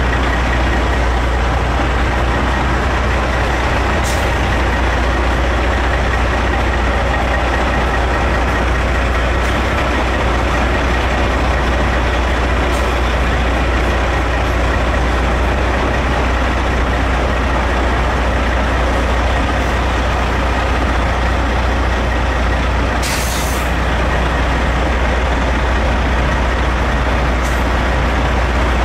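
Semi truck's diesel engine running steadily at idle, with short air-brake hisses several times and a longer, louder air release near the end.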